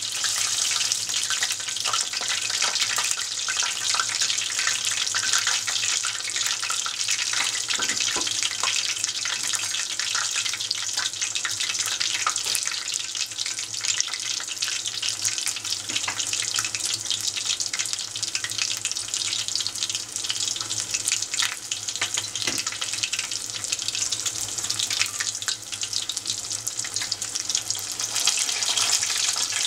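Tempura, battered pieces of conger eel (anago), deep-frying in hot oil: a steady, dense sizzle of fine crackles as moisture in the batter boils off.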